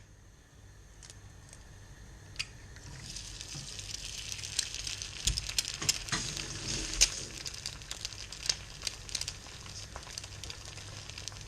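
Egg frying in hot oil in a small single-egg pan: a few light clicks, then from about three seconds in a sizzle with crackling pops that grows louder and keeps on.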